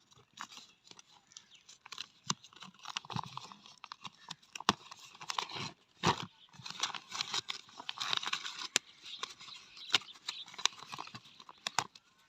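Plastic packaging being torn open and crinkled by hand: irregular crackles, rustles and sharp clicks.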